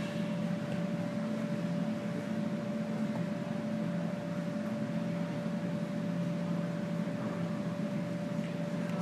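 Steady mechanical hum over an even hiss, with one constant tone running through it.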